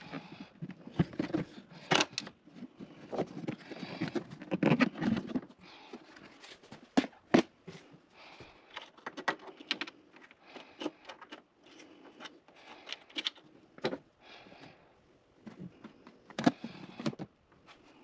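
Hand work on stiff plastic car trim parts: irregular sharp clicks and taps with scraping and rustling in between.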